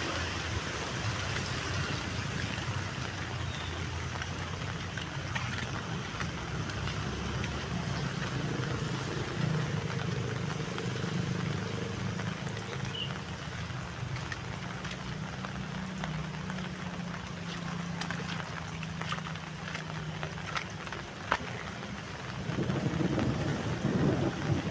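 Heavy rain falling steadily, a dense hiss with the patter of individual drops, over a low steady hum. A single sharp tap comes near the end, and a louder low rumble swells up in the last couple of seconds.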